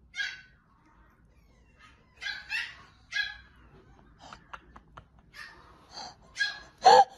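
Small dog giving a series of short, high-pitched yips and whimpers, scattered over a few seconds, with the loudest yelp near the end.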